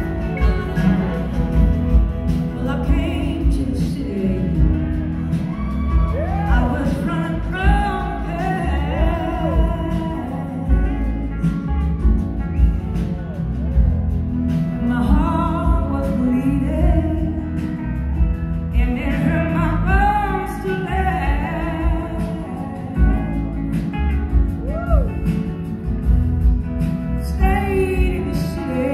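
Live rock-soul band playing, with a woman singing lead over electric guitars and drums, heard from the audience in a large hall.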